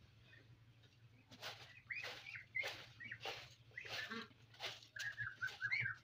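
A straw broom sweeping dry dirt in regular strokes, about three every two seconds, starting about a second and a half in. Birds call between the strokes, more busily near the end.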